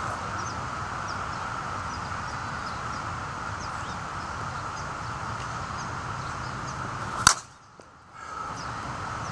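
A single sharp, loud crack of a slowpitch softball bat striking a ball, about seven seconds in, over faint bird chirps.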